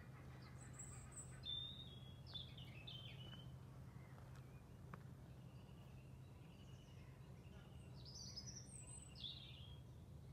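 A small songbird singing two short phrases of high chirps and quick falling notes, one about a second in and one near the end, over a faint steady low hum.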